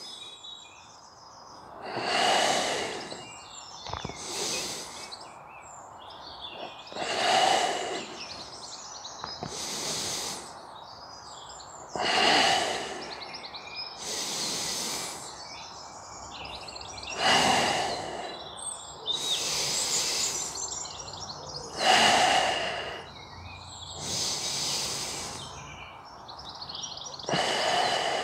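A person breathing deeply and audibly in a steady, paced rhythm: a stronger exhale about every five seconds, with a softer inhale between each. The breath keeps time with slow leg-lowering reps of a core exercise. Birds chirp faintly behind.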